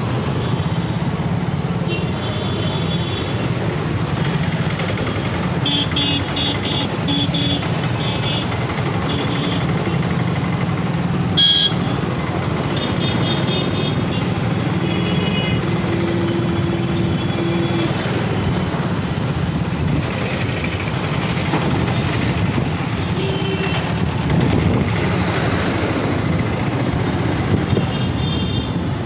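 Motorcycle engine running steadily in dense city traffic, with other vehicles' horns beeping in several short bursts and one longer horn note partway through.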